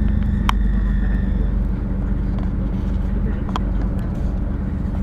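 Diesel-electric multiple unit train running with a steady low engine and wheel rumble, with two sharp clicks, one about half a second in and another about three and a half seconds in.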